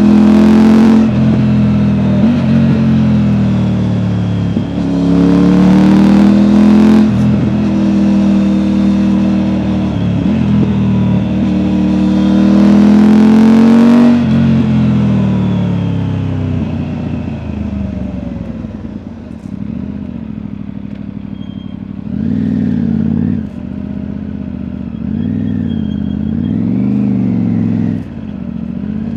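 Triumph Tiger 900 three-cylinder engine through an Akrapovic exhaust, heard on board from the rider's back. It accelerates hard through several upshifts, its pitch climbing and then dropping at each shift, and rolls off about halfway through. It then runs quieter, with the revs rising and falling a few times at lighter throttle.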